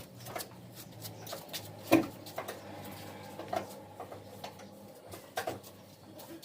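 Scattered metallic clinks and knocks of hand tools and wheel nuts as a car wheel is refitted, with one sharper knock about two seconds in.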